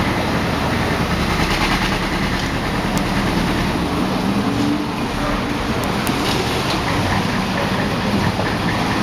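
Steady, loud rumble of running engines and street traffic, with a low hum and a few faint clicks.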